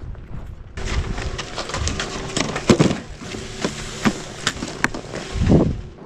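Snowboard sliding over packed snow for a moment, then a chairlift running at its loading station: a steady machinery hum with many sharp knocks and clatters, and two heavier thuds about three and five and a half seconds in.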